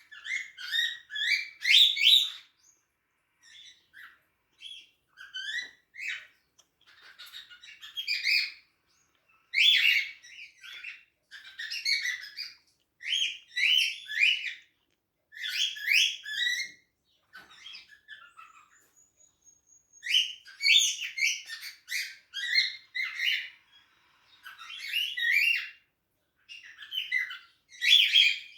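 Pet cockatiels chirping and warbling in bouts of short, quick whistled notes, with brief pauses between bouts.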